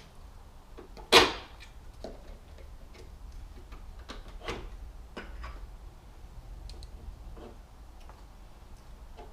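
Scattered clicks and knocks of parts and tools being handled while a car's transmission control unit and its mounting are worked loose. A single sharp, loud knock comes about a second in, followed by fainter clicks.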